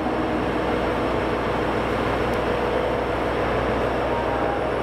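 A train running: a steady rumble and rushing noise with a low hum underneath, holding an even level throughout.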